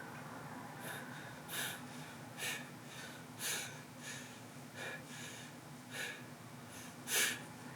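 A man breathing hard through clenched teeth in short hissing breaths, about one a second, performed as strained vocal effort sounds.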